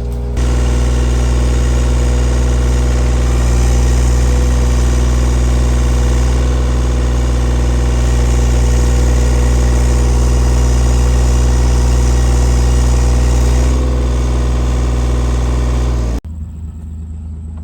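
An engine running steadily at a constant speed with a heavy low rumble, likely a machine working on the lake's drainage pipe. It steps up slightly just after the start, then cuts down sharply near the end to a quieter rumble.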